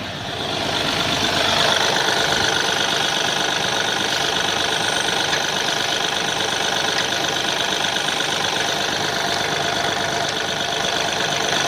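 Mahindra Bolero BS6 diesel engine running at a steady idle with a clattering knock, building over the first second or two and then holding even.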